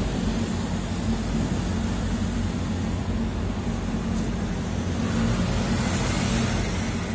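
Steady low mechanical hum from running machinery, with an even background noise over it.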